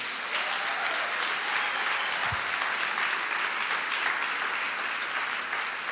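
A congregation of a few dozen people clapping steadily together, easing off slightly near the end.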